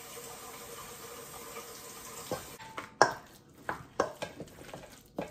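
A utensil clicking and scraping against a stainless steel mixing bowl as mashed potato, flaked cod and diced onion are stirred together, a handful of sharp knocks starting about halfway in. Before that, only a faint steady hum.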